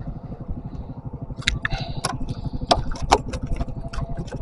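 An engine running steadily with a fast low pulse, and a series of sharp clicks and knocks over it from about a second and a half in.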